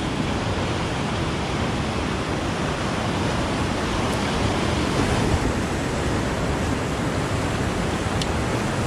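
Sea surf breaking over and washing around shoreline rocks: a steady rushing noise.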